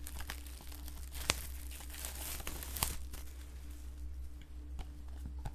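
Handling a Blu-ray case and its cardboard slipcase: light rustling and crinkling with a few sharp clicks, over a steady low hum.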